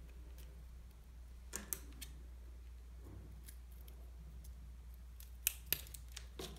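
Small scissors snipping the tag end of monofilament fishing line off a knot: a few faint, sharp clicks, the loudest two close together about five and a half seconds in.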